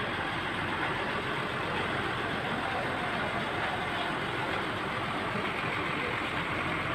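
Steady outdoor street noise with a vehicle engine idling under it.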